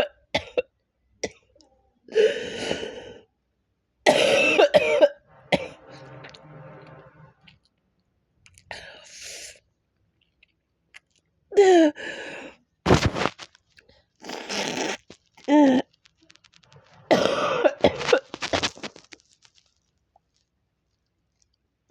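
A person coughing hard in a string of separate fits a second or two apart, about seven in all. About five seconds in comes a longer, quieter sound with a voice-like pitch.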